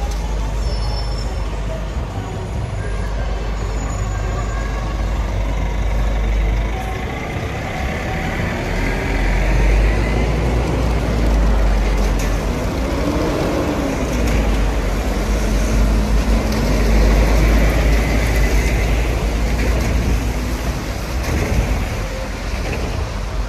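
Red articulated city buses running close by on a wet street, over a steady low traffic rumble. Engine pitch rises and falls about halfway through.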